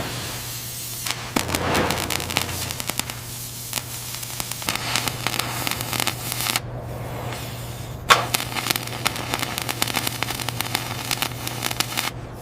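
Dense, irregular crackling and popping over a steady low hum, broken twice by short gaps.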